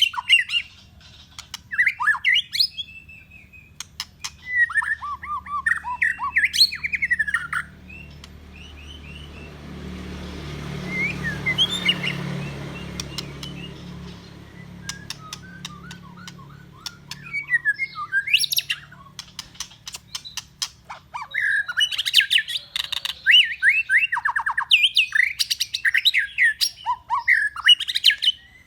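A murai songbird singing in bursts of quick, varied whistled phrases mixed with sharp clicking notes. In the middle the song thins out while a low rumbling noise swells and fades, then the singing returns busier toward the end.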